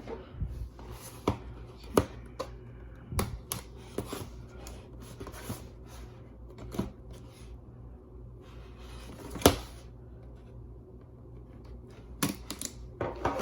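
A cardboard product box being handled and opened by hand: scattered clicks, taps and knocks at irregular intervals, the loudest about nine and a half seconds in.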